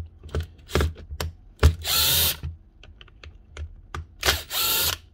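Cordless drill motor run in two short bursts of about half a second each, its whine rising in pitch as it spins up. Light clicks and knocks of handling come in between, with a sharp knock just before the first burst.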